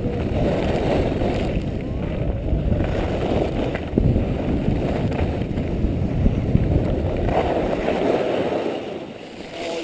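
Wind buffeting an action camera's microphone on a fast ski run, mixed with the hiss and scrape of skis on packed snow. It dies down near the end as the run slows.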